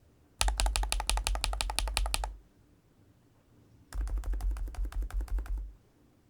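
Typing on a GLITTER65 HE Pro magnetic Hall-effect switch keyboard with a polycarbonate case: two bursts of rapid keystrokes, separated by a pause of about a second and a half.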